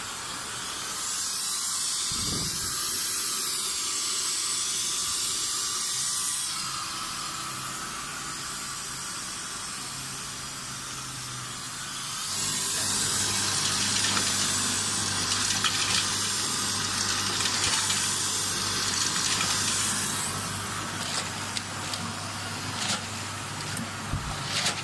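Vertical four-side-seal candy packing machine running: a steady hiss that swells for several seconds at a time over a low hum, with a few sharp clacks near the end.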